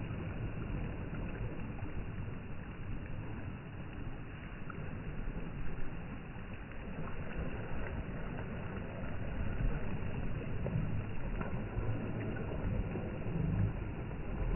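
Wind rumbling on a phone microphone together with small waves washing onto the shore: a steady low rumble and hiss.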